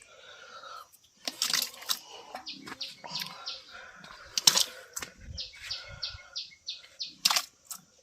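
A bird chirping rapidly, short falling chirps about four a second, mixed with a few sharp knocks.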